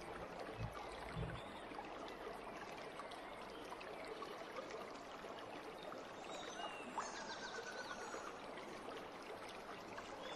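Faint steady outdoor hiss, like wind or moving water, with two soft low thumps about a second in and a few faint short whistling glides just past the middle.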